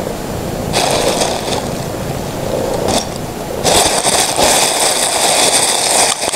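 A thin plastic bag crinkling and rustling as a cat moves about inside it, in a short burst about a second in and a longer one from past halfway until near the end.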